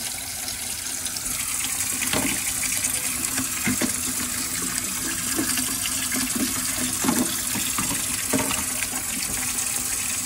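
Kitchen tap running into a stainless-steel sink, the water splashing over a clear plastic waterproof action-camera case held in the stream: a test of the case's seal.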